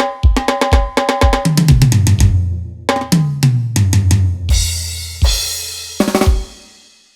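Electronic drum and percussion sounds from a Roland SPD-30 Octapad: a fast run of kick, snare and ringing percussion hits, then two low booming toms that slide down in pitch, a cymbal crash about four and a half seconds in, and a couple of last hits that die away.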